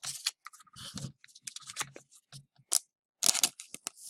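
Trading cards and a foil pack wrapper handled close by: irregular crinkles, rustles and small clicks as cards are sorted, with the loudest rustle about three seconds in.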